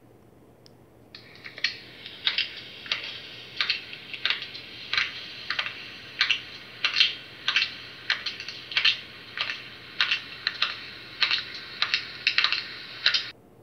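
A steady run of sharp taps or clicks, about one and a half a second and varying a little in strength. The run starts about a second in and cuts off suddenly near the end.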